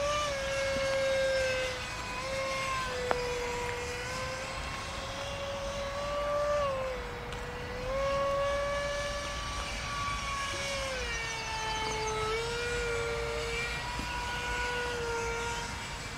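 Radio-controlled model warplane flying overhead: a steady motor whine whose pitch slides up and down as it passes and turns. A single sharp click sounds about three seconds in.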